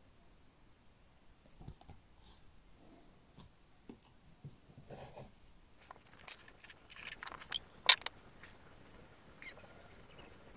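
Faint taps and rustles from hands handling a table tennis rubber sheet over a wooden blade. Then comes a run of quick scratchy strokes, a glue brush working across the bare blade, with one sharp click about eight seconds in.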